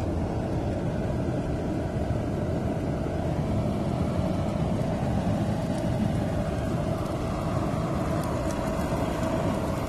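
Large handheld gas burner running steadily with a low, even rushing noise as its flame singes the bristles off a wild boar carcass.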